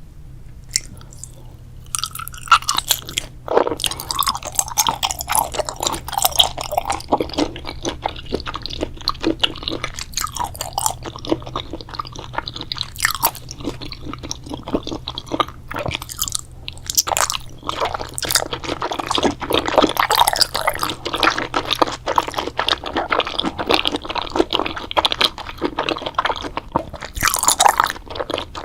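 Close-miked eating: a person chewing and biting into crunchy food, a dense run of crackling crunches and wet mouth sounds that begins about two seconds in.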